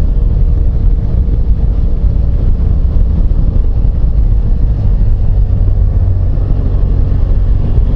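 Motorcycle under way: steady wind rush on the microphone over the even drone of the engine.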